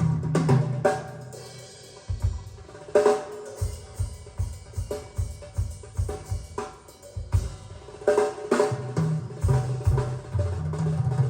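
Bass-and-drum jazz track played back through Snell Type A/III loudspeakers. A bass line gives way about a second in to a stretch of drums alone, with regular kick-drum beats and snare hits, before the bass comes back in near the end.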